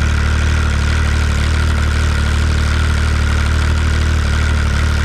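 Arctic Cat ZR7000 snowmobile's 1049cc Yamaha engine idling steadily with its freshly rebuilt stock Arctic Cat clutch turning, the clutch noise still loud.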